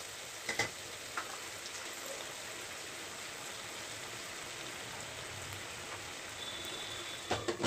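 Diced potatoes simmering in oil and spiced water in a nonstick kadai, a steady sizzling hiss as the water cooks down to soften them. A few light spatula knocks against the pan come about half a second and a second in, and again near the end.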